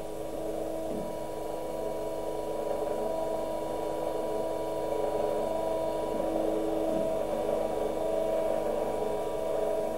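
A steady mechanical hum with several held tones and no beat or clicks, swelling slightly in the middle.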